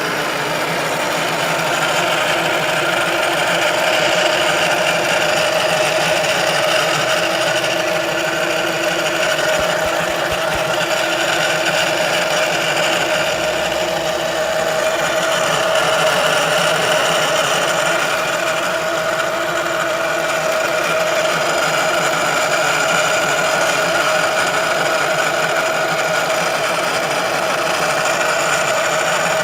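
Steady mechanical whine with a hum from a Ford Focus's transmission control module (TCM) area while the car runs. This is the abnormal noise being documented from the TCM. It holds one pitch throughout, swelling slightly now and then.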